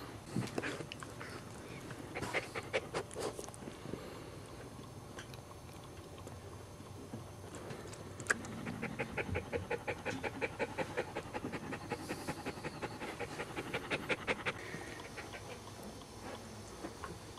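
Cairn terrier mother panting in labor, in quick even breaths of about five a second, loudest through the middle few seconds.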